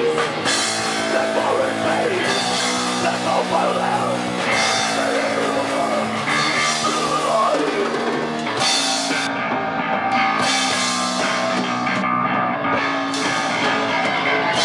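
Metal band playing live, with distorted electric guitars over a fast drum kit and cymbals, loud and steady.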